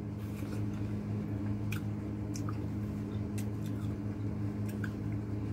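Watermelon being bitten and chewed, with scattered small wet clicks and smacks of eating over a steady low hum.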